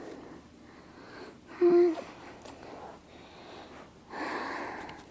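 A person's short pitched voice sound, like a brief hum, about two seconds in, then a breathy exhale near the end.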